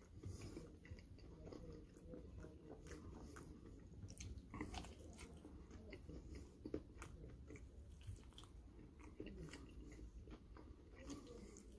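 Faint chewing and biting on a buffalo-sauced chicken wing: small wet mouth clicks and smacks as the meat is pulled off the bone and chewed.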